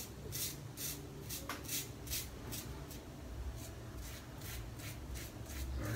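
Mühle R41 double-edge safety razor scraping stubble off a lathered scalp in short, quick strokes, about two or three a second.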